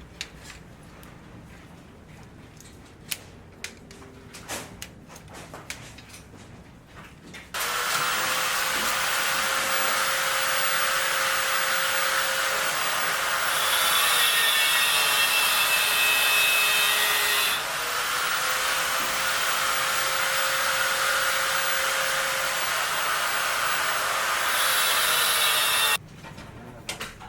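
An electric power cutting tool starts abruptly and runs for about 18 seconds, then cuts off suddenly. Its motor note drops in pitch for a few seconds around the middle, as it labours cutting into material, then recovers. Before it starts there are scattered knocks and taps.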